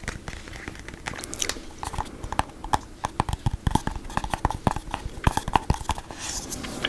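Close-miked wet mouth sounds: a run of quick tongue clicks and lip smacks with some chewing, the clicks coming thicker from about two seconds in.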